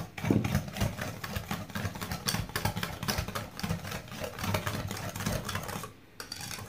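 Hand wire whisk beating runny batter in a ceramic bowl: fast, continuous clattering of the tines against the bowl, with a brief pause near the end before it starts again.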